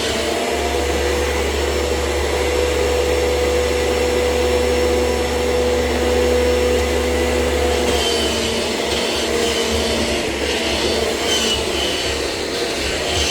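Kirby Generation 6 upright vacuum cleaner running while vacuuming carpet: a loud, steady motor hum with a constant whine, which turns more uneven and wavering about eight seconds in.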